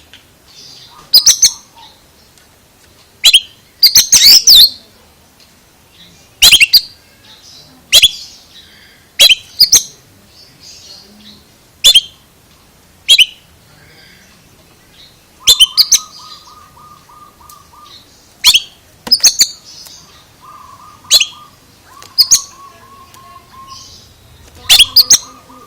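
Oriental magpie-robin (kacer) calling: loud, sharp, high whistled chirps every second or two, with a few lower, buzzy rapid trills around halfway and near the end.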